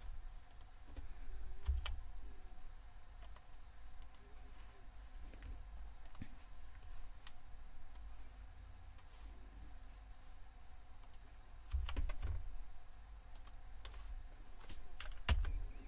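Scattered faint clicks of a computer keyboard and mouse, with a couple of dull low thumps, one about twelve seconds in and one near the end.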